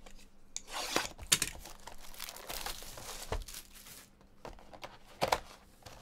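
Plastic shrink wrap being torn and crumpled off a sealed trading card box, crinkling steadily with sharp crackles about a second in and again near the end.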